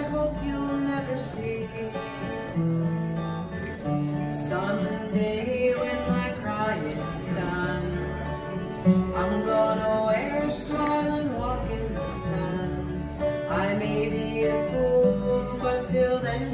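A woman singing while playing an acoustic guitar, with a bass guitar holding low notes underneath.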